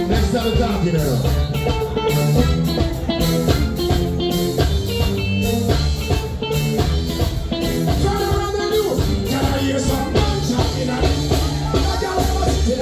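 Live band playing reggae-dancehall music through a stage PA, with heavy bass, drums and guitar. A voice sings over it at times.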